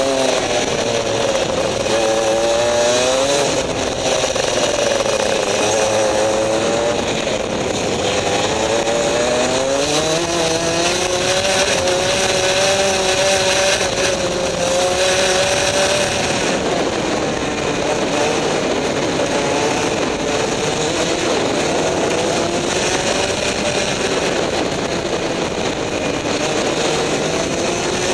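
Rotax two-stroke racing kart engine heard from the driver's seat at full race pace, its revs repeatedly dropping into corners and climbing again on the straights, holding a high steady note along the longer straight about halfway through.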